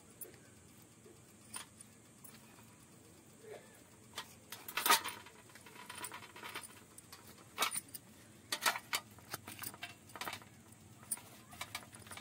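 Hands unwrapping a steamed leaf parcel on a stainless steel plate: irregular rustles and crackles of the leaves with small metallic clinks, the loudest about five seconds in.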